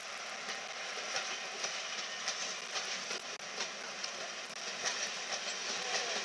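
Passenger coaches' wheels clattering over rail joints and pointwork as a steam-hauled train pulls away, with sharp clicks about two a second.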